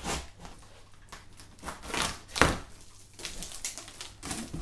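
Large cardboard box being opened by hand: flaps scraping and rubbing, with a few short knocks. The loudest is a sharp knock about two and a half seconds in.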